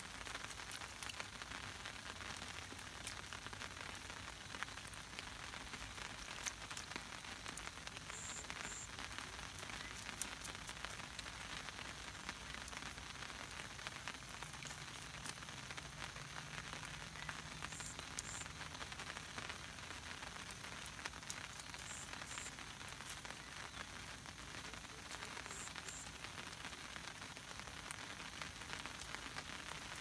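Steady rain falling, an even hiss with many scattered drops ticking.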